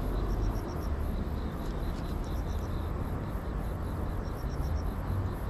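Steady low outdoor rumble with a background haze. Short runs of about five quick high chirps repeat every second or two.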